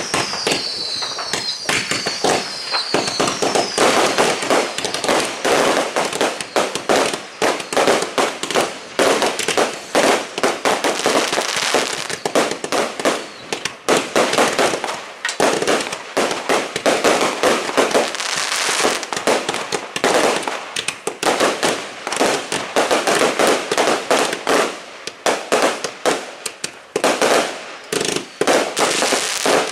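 New Year's Eve fireworks going off in a dense, irregular barrage of bangs and crackles from firecrackers and rockets. In the first few seconds several whistles fall in pitch over the bangs.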